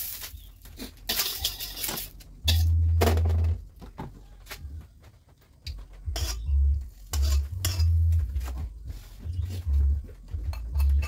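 Metal cookware clattering: a metal spatula and a second pan knocking and scraping against a steel wok on a gas stove, in a run of separate clinks and knocks. Dull low thumps come in among them, the loudest about two and a half seconds in.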